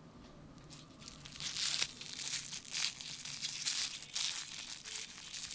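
Aluminium foil wrapper being crumpled and peeled open by hand, crinkling in irregular bursts that start about a second in.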